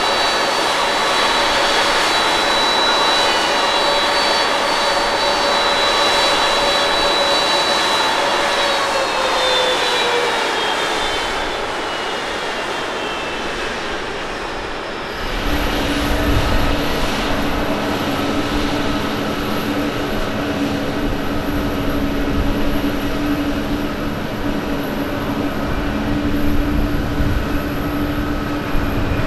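Jet engine whine from a parked Boeing 767, steady tones that slide down in pitch about nine seconds in. About halfway through it gives way to the deep rumble of an ANA Boeing 767-300's twin turbofans on the takeoff roll, with a steady hum over it.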